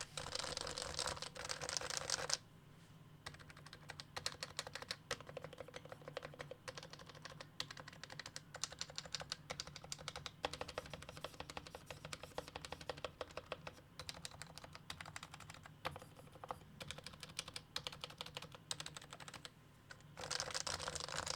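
Typing on a Topre (electro-capacitive) keyboard, a dense stream of keystrokes. It is louder and fuller for about the first two seconds and again near the end, softer in between.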